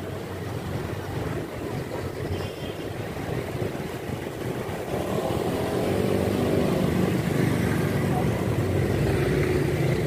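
Motorcycle engine running while riding slowly through street traffic, with road noise; the engine grows louder from about five seconds in.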